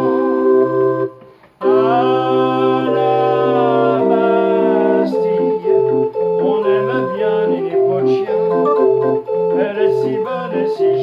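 Street organ (orgue de Barbarie) with wooden pipes, cranked by hand, playing an instrumental passage between verses. It breaks off briefly about a second in, holds a long chord, then plays on with a steady bass-and-chord accompaniment under the melody.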